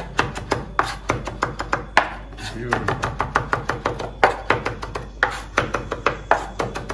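Kitchen knife chopping a Scotch bonnet pepper: quick, uneven knocks of the blade, about four or five a second.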